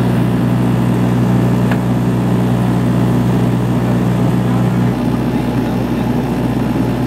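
Turboprop airliner engine and propeller in flight, heard inside the cabin: a loud, steady drone with a low hum of several steady tones. The tones change slightly about five seconds in.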